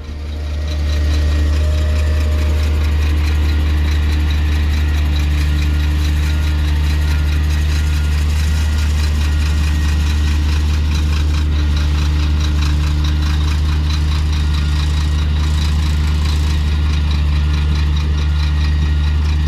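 A steady, low engine hum, like a heavy engine idling, holding an even pitch and level throughout.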